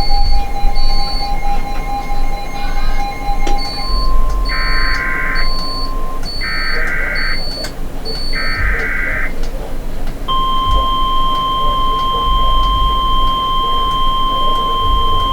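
Emergency Alert System SAME header: three short screechy digital data bursts about two seconds apart, over steady tones and a faint quick beeping. About ten seconds in, a long steady alert tone starts, signalling that a new alert, here a flood warning, is about to be read.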